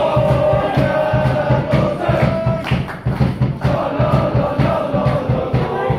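Football supporters singing a chant together, many voices holding long notes over a drum beaten steadily about twice a second.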